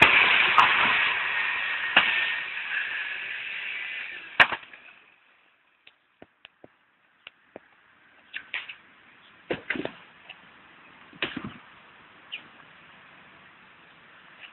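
A steady, hissing machine noise with a thin whine runs and stops about four to five seconds in. After it, an axe splits birch firewood in a series of sharp, irregular blows, with lighter knocks of wood pieces in between.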